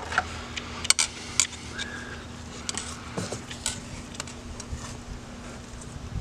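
Scattered light metallic clicks and taps as a hose clamp is fitted onto a rubber vacuum hose and worked with a screwdriver.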